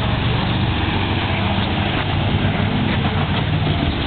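A motor vehicle engine idling steadily at an even low pitch, with no revving, over a constant rushing noise.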